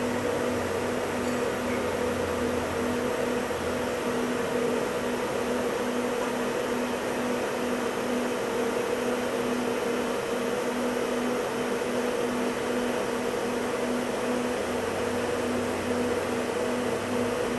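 1999 Daewoo DMV-500 vertical machining center running with its spindle stopped: a steady electric motor hum, one tone with its octave, over an even fan-like rush.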